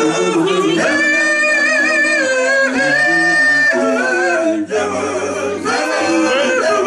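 Male doo-wop vocal group singing in close harmony through microphones, with a high note held for a few seconds early on over lower sustained parts.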